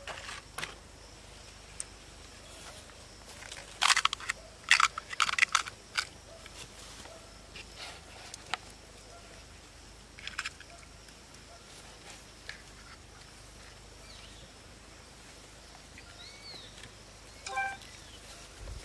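Crisp fried puri shells crackling and crunching, in a cluster of sharp crunches about four to six seconds in and a few lighter ones later. A short chirping call is heard near the end.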